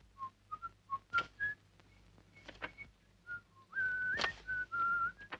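Someone whistling a soft tune under the breath, in short notes at first and then longer held ones, with papers rustling and flicking as a bundle of receipts is leafed through.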